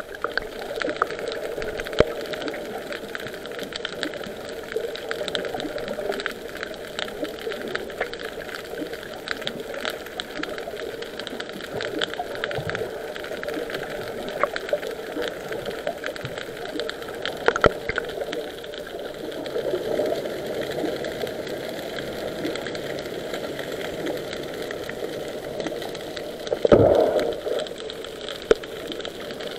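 Underwater noise heard through an action camera's waterproof housing: a steady muffled hiss of moving water with many scattered clicks and small knocks. About 27 seconds in there is a louder burst with a low thump.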